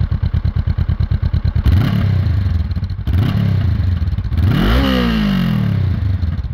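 Motorcycle engine idling with an even pulse, then revved three times, each rev rising and falling in pitch, the third the highest and longest.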